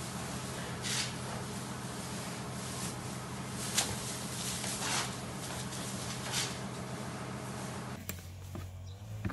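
Young cattle rustling and crunching in straw bedding as they feed, in short soft strokes every second or so, over a steady low mechanical hum.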